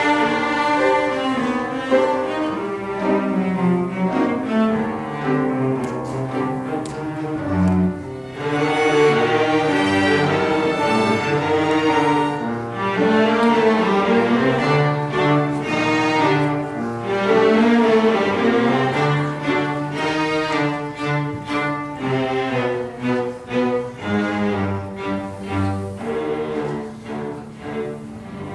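A bowed string ensemble playing, with cellos and double basses carrying a low line under the higher strings. The playing grows fuller and louder about eight seconds in and eases somewhat in the last part.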